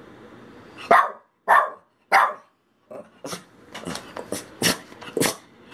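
Small shaggy dog barking at the camera in frustration at not being allowed to play: three loud barks starting about a second in, then a quicker string of shorter, softer barks.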